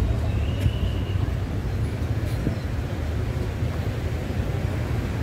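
Street traffic: a steady low rumble of vehicle engines running close by, with a brief thin high tone about half a second in.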